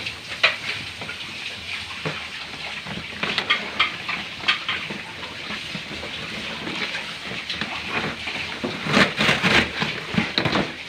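Packaging being handled: irregular rustling and crinkling with scattered sharp crackles, busiest near the end.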